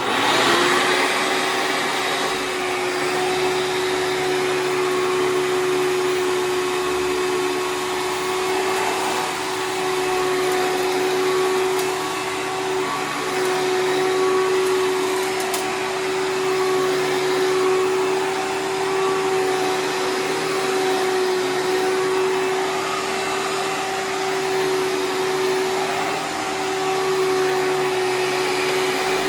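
Hoover Preferred upright vacuum cleaner switching on and running steadily, its motor giving a constant droning tone over a broad airflow hiss.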